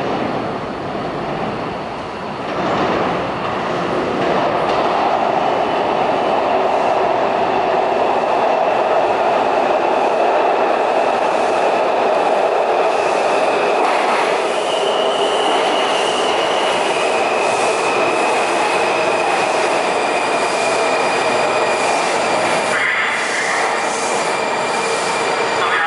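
WMATA Metrorail train of Breda 2000/3000-series cars pulling into an underground station. The rumble of wheels on rails grows over the first few seconds, then holds as a steady loud rush while the cars run along the platform, with thin high wheel-squeal tones over it.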